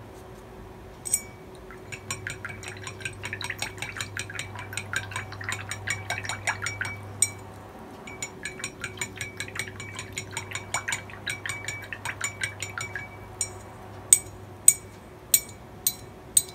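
Paintbrush dabbing gouache onto sketchbook paper in quick short strokes, a few per second, in two long runs. Near the end the brush is rinsed in a glass water jar and clinks sharply against the glass about five times.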